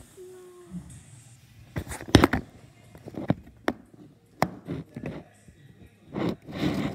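A series of irregular sharp clicks and knocks, with a louder rustling burst near the end.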